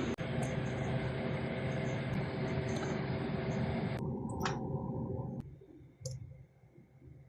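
Trane central air conditioner running with a steady hum and rush of air, which drops away in two steps about four and five and a half seconds in, with a few sharp clicks.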